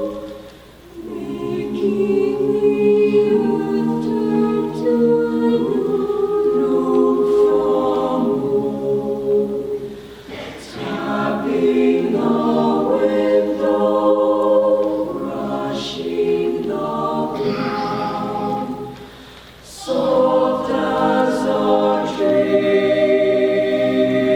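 High school madrigal choir singing a cappella, sustained chords in three phrases with short breaks about a second in, around ten seconds in and around nineteen seconds in.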